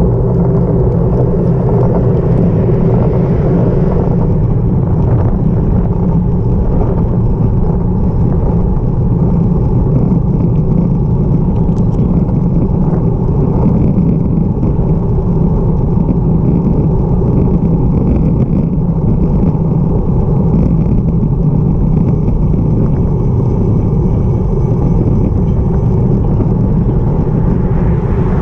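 Wind rushing over a handlebar-mounted camera's microphone on a moving road bike: a loud, steady low rumble.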